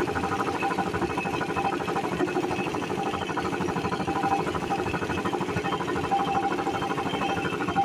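Air compressor running steadily, with a fast, even pulsing beat.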